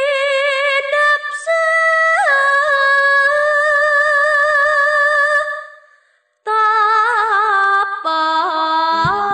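A female voice sings unaccompanied long, ornamented phrases of Javanese tembang sinom with a wavering vibrato, in two phrases with a short break between them, the second lower. Struck gamelan instruments come in at the very end.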